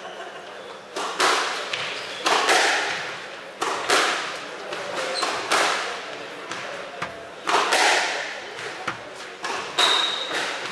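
Squash rally: the ball cracks off the racket and smacks the walls in quick pairs about every one and a half to two seconds, each hit echoing in the enclosed court.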